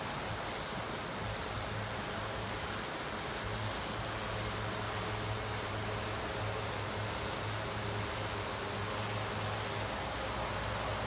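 DJI Agras crop-spraying drone in flight: a steady low rotor hum under a broad rushing hiss of prop wash.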